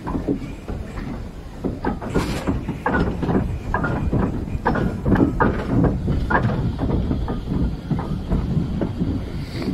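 Small steam tank locomotive on the move, its exhaust beats at about three a second over the low rumble of wheels on the rails, with a brief hiss about two seconds in.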